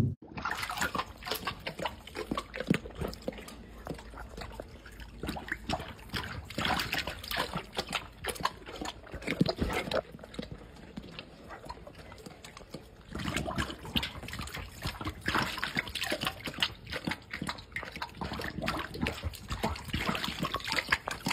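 Irregular rustling and scuffling noises. Then, from about two-thirds of the way in, a dog drinking from a steel water bowl: rapid lapping with wet slaps and splashes of water.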